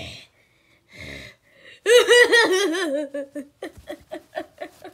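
A person laughing in a high-pitched voice: a couple of breathy gasps first, then a loud burst of quick 'ha-ha-ha' pulses about two seconds in, trailing off into shorter, quieter chuckles.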